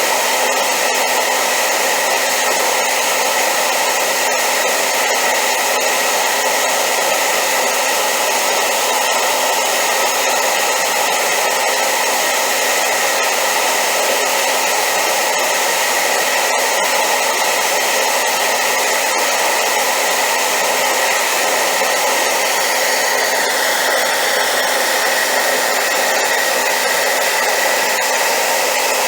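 Hair dryer running continuously on high power: a loud, even rushing hiss with a steady motor whine.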